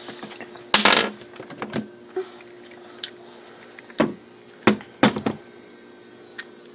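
Small electric motor of a battery-powered toy train whirring steadily, with several sharp clicks and knocks from the toy and wooden track being handled, the loudest about a second in and again around four to five seconds in.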